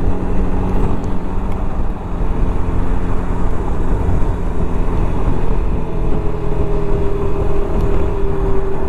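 Suzuki Burgman 400 single-cylinder scooter riding at cruising speed: steady engine drone under wind and road noise. About halfway through, a humming tone comes in and falls slightly in pitch.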